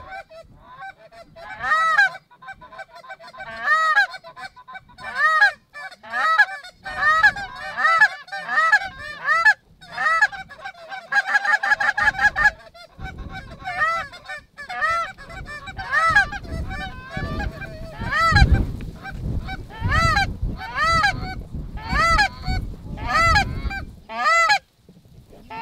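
Canada goose honks and clucks, repeated about once a second, with a fast run of clucks about eleven seconds in and a low rumble under the later calls.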